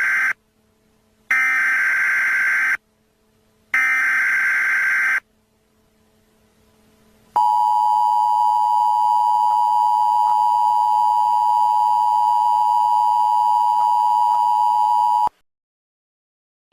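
Emergency Alert System tones. The end of one SAME header data burst is followed by two more, each a harsh warbling screech about a second and a half long. After a short pause comes the steady two-tone EAS attention signal, held for about eight seconds and then cut off sharply.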